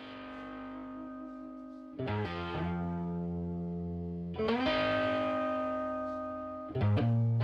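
Background music: distorted electric guitar playing long sustained chords that change about every two seconds.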